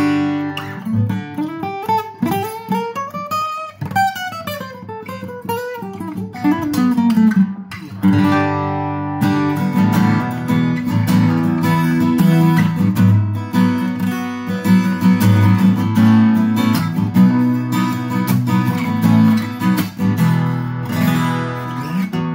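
Cat's Eyes CE-200 dreadnought acoustic guitar (Tokai, 1970s, spruce-topped laminate) played with the fingers, freshly strung with 11-gauge strings. Over the first seven seconds or so the notes sweep up in pitch and back down, then it settles into steady picked chords and melody.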